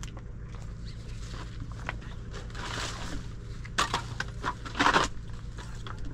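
Dry brushwood sticks rustling, scraping and snapping as they are pulled down from a firewood stack. There is a burst of rustling about two and a half seconds in and several sharp cracks between about four and five seconds in, over a steady low rumble.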